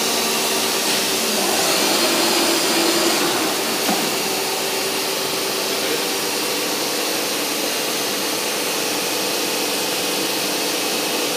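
CNC router running with its cut finished: a steady rushing air noise from the machine, with the spindle's hum fading out over the first couple of seconds.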